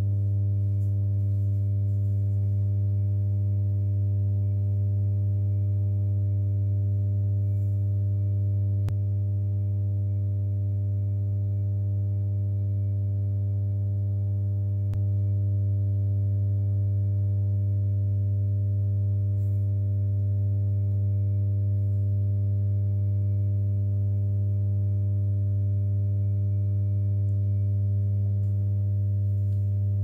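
Microwave oven transformer, its secondary rewound with a thick insulated copper cable, humming steadily on mains power, a little quieter for a few seconds in the middle. The maker says this winding gives a lower hum.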